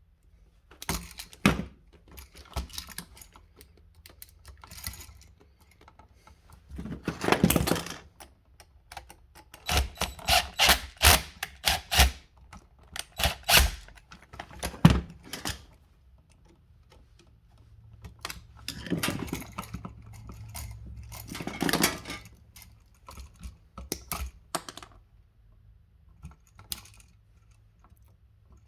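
Hand tools and electrical wire being handled while jumper wires are made up: irregular clicks, taps and rattles, with a few longer noisy stretches about seven seconds in and around twenty seconds in.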